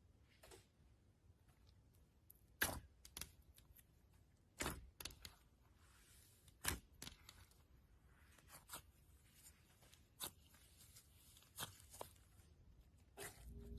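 Slime being squeezed and stretched by hand: scattered sharp pops and clicks at an irregular pace, with faint crackle between them.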